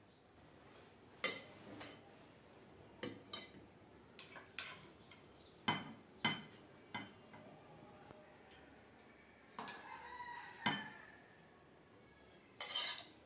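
A serving spoon clinking against steel plates and ceramic bowls as food is dished out at a meal: a dozen or so separate sharp clinks, unevenly spaced.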